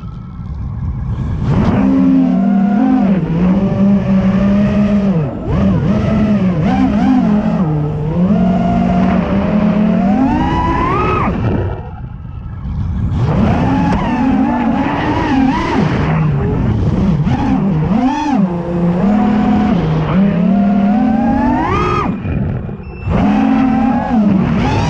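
FPV freestyle quadcopter's brushless motors and propellers whining, the pitch rising and falling quickly with the throttle. The sound drops away briefly twice, just after the start and around twelve seconds in, then surges back up.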